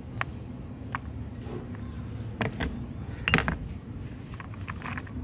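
Metal meat-grinder parts, the perforated plate and cutting blade, clinking and knocking against each other and a plastic tray: half a dozen sharp knocks, the loudest a little past halfway, over a low steady rumble.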